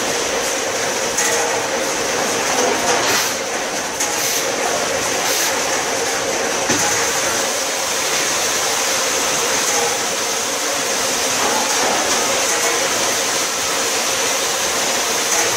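Automatic case packer machine running steadily: a continuous mechanical noise with a steady high whine and a few short knocks.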